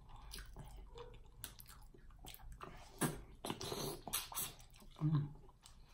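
Close-up eating sounds of a cooked mussel: slurps and lip smacks as it is sucked from the shell, then chewing, in short irregular bursts.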